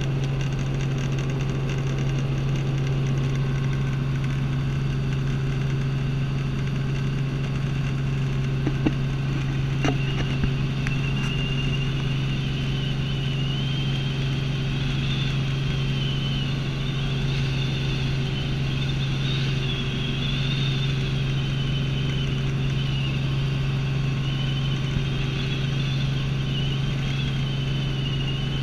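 Robinson light helicopter in flight, heard from inside the cabin: a loud, steady low drone of engine and rotor. From about a third of the way in, a faint high whine wavers up and down in pitch over it, and a few brief clicks come just before it starts.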